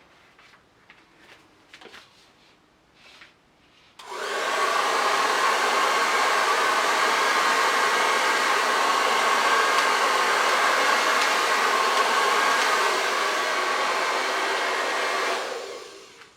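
Handheld hair dryer switched on about four seconds in, blowing steadily for about eleven seconds to push thinned acrylic paint across a canvas, then switched off near the end. Before it starts, a few faint small clicks and taps.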